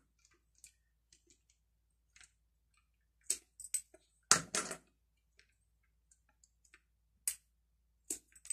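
Beads clicking against each other as they are worked off a string, a few short sharp clicks at irregular intervals, the loudest around the middle.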